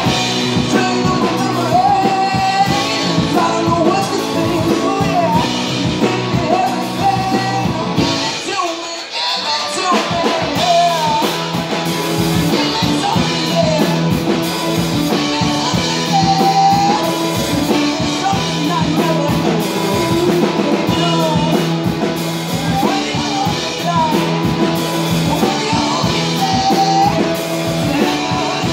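Live rock band playing through a PA: a lead singer over electric guitars, keyboard and drum kit. About eight seconds in the low end drops out for a couple of seconds, then the full band comes back in.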